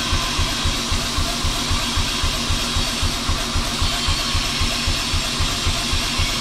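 Background music with a fast, steady low beat.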